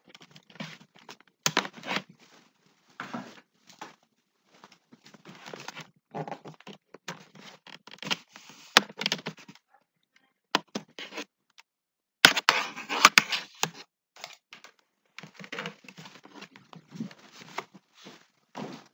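Handling noise close to the microphone: irregular rustling and scraping with scattered sharp clicks, coming and going in short bursts, loudest in a cluster about twelve seconds in.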